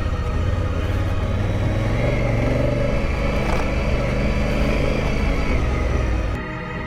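Big adventure motorcycle engine running as the bike rides along a dirt trail, pulling up in pitch a couple of seconds in. Near the end the engine sound cuts off abruptly.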